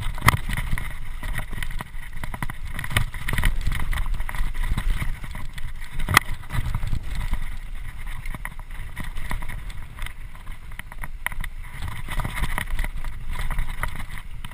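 Mountain bike riding down a rough dirt singletrack: a steady rumble of tyres and wind on the microphone, with rattles and sharp knocks from the bike over bumps, one of the loudest about six seconds in.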